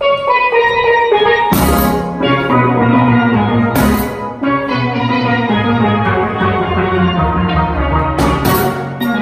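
Steel orchestra playing live: the steel pans open with a few higher notes, then the bass pans and drum kit join about a second and a half in, with cymbal crashes marking the beat three times.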